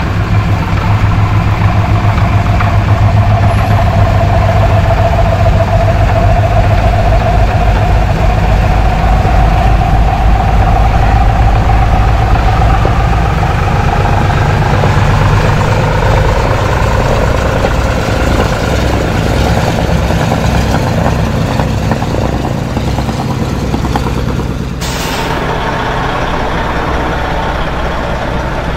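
The twin Pratt & Whitney R-2000 radial piston engines and propellers of a de Havilland Canada DHC-4 Caribou running on the ground as the aircraft rolls along the runway. It is a loud, steady engine sound with a whine that slowly drifts lower in pitch. Near the end the sound cuts suddenly to a quieter engine rumble.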